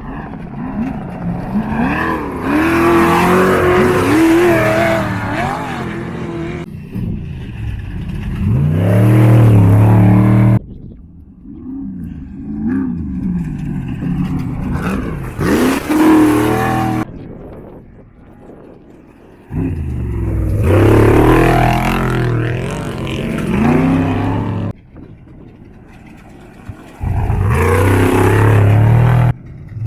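Off-road desert race cars' engines revving and accelerating past, their pitch rising and falling; the sound breaks off abruptly and starts again several times.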